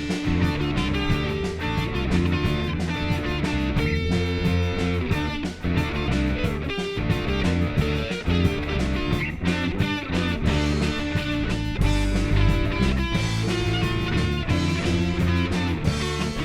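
Punk rock band playing an instrumental stretch of a song live: electric guitars and bass over a steady drum beat, with no singing.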